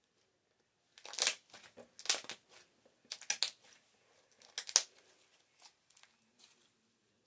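Slime being squeezed and pressed, giving bursts of crackly popping sounds: four louder clusters about a second apart, then a few fainter pops.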